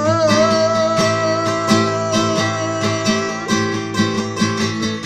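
Acoustic guitar strummed steadily while a man's voice holds the last sung note of a line for about three and a half seconds; the guitar then carries on alone.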